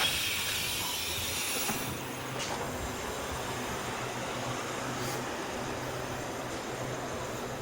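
Taiwan Railway 800 series electric multiple unit train: a steady rumble and hiss with a faint low hum.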